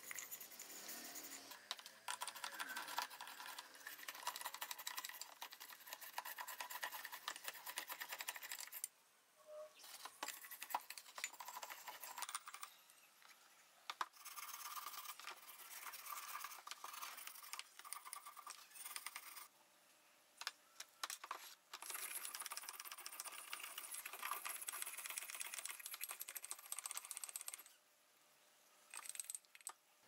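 Rubber-gloved hands scrubbing and handling aluminium moka pot parts in a tub of cleaning liquid: dense scratchy rubbing with small clicks and clinks, in stretches broken by several short pauses.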